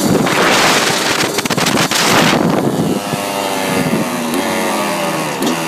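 Dirt bike engine running under a moving ride, with wind buffeting the microphone for the first two seconds or so, then the engine note coming through clearly, its pitch shifting with the throttle near the end.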